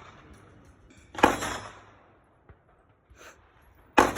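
Two gunshots, about three seconds apart, each a sharp crack with a short echoing tail.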